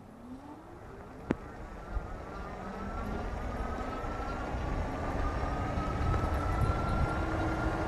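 Rear hub motor of a 750 W fat-tyre e-bike accelerating from a near stop, its whine rising in pitch as speed climbs. Wind and tyre rush grow louder with speed. A single sharp click comes about a second in.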